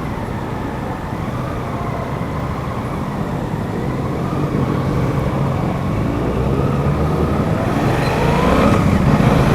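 Suzuki GSX-8S motorcycle's parallel-twin engine running under way, with road and wind rush. Its note rises and grows louder in the last few seconds as the bike accelerates.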